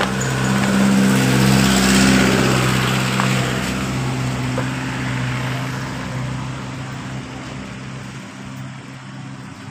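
A steady, engine-like low drone, with sand hissing as it slides out of a plastic toy dump truck's bed, loudest in the first few seconds and then fading.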